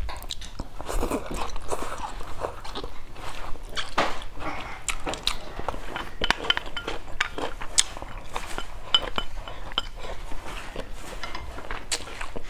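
Close-miked chewing and biting of stir-fried green beans and rice, a steady run of small wet crunches and clicks.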